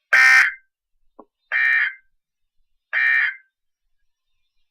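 Emergency Alert System end-of-message data bursts on NOAA Weather Radio: three short bursts of buzzing digital tone about a second and a half apart. They are the code that closes the Required Weekly Test broadcast.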